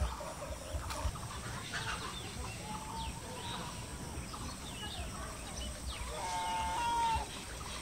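Domestic fowl calling, with short clucks and chirps, then one drawn-out, level call lasting about a second near the end, over a low rumble.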